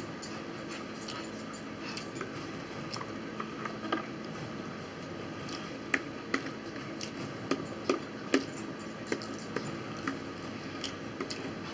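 Metal forks clicking and scraping on a plate and a plastic takeout tray, with chewing and mouth sounds. The clicks are scattered and irregular, the loudest bunched together a little past the middle.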